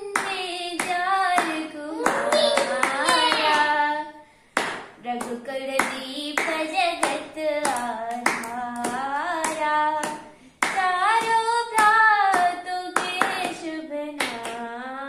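A voice singing a melodic song while hands clap along in time, about two claps a second, with short pauses between phrases about four and ten seconds in.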